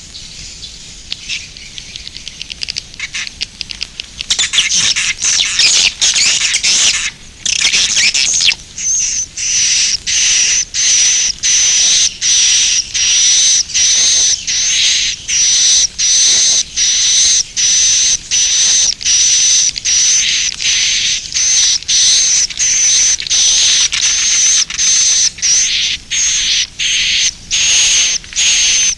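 Edible-nest swiftlet 'suara inap' roosting calls: a loud, high, buzzy twitter repeated in a steady rhythm with short breaks, a little over once a second. It is preceded by softer twittering for about the first four seconds.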